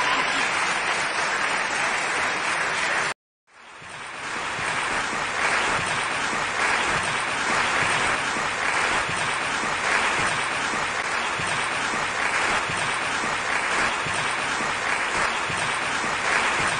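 Theatre audience applauding. The clapping breaks off sharply about three seconds in, then fades back in and continues steadily.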